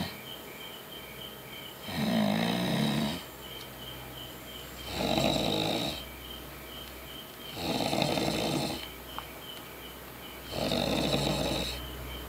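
A man snoring in his sleep: four snores about three seconds apart, each lasting about a second.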